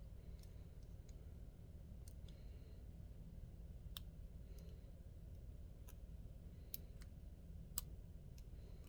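Faint, scattered light metallic clicks, about one every second or two, from a lock pick working the pins inside a lock, over a low steady hum.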